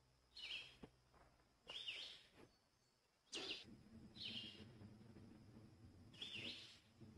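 Faint calls of a small songbird: four short calls spaced about two seconds apart. A low steady rumble sets in with a click about halfway through.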